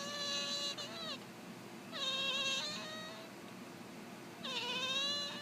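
Devon Rex cat meowing four times: a call that ends less than a second in, a short one right after, another around two seconds in, and a last one near the end.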